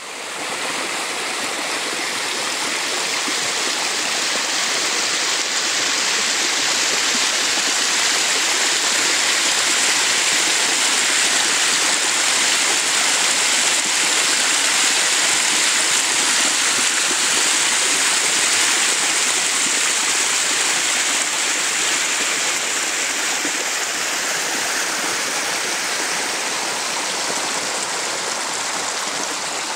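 A small creek running over bedrock, water pouring through narrow rock chutes into pools in a steady rush, a little louder midway.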